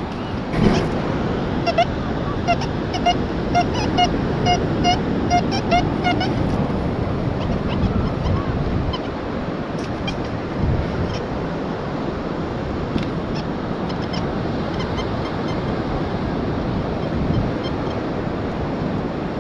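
Surf washing steadily on the beach. About two seconds in, a metal detector gives a run of about ten short, even beeps, a little over two a second, and beeps faintly again later.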